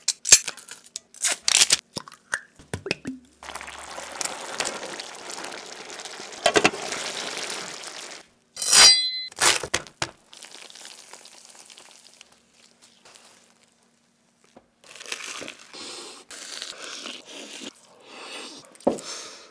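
A run of close-miked kitchen sounds: sharp clicks and knocks, then a few seconds of steady hiss. Toward the end comes a bite into a hamburger steak on bread, with chewing.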